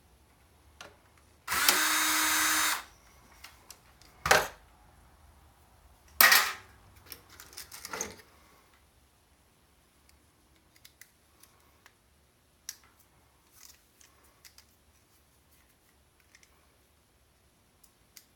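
A small handheld power tool runs steadily for just over a second. Two sharp knocks follow about two seconds apart, then a brief clatter and light clicks of handling.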